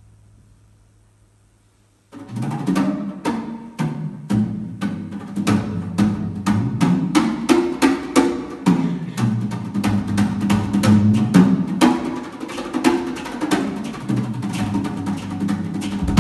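Live drumming: after a fading ring dies away, a fast, dense run of drum strikes starts about two seconds in and keeps going, several hits a second.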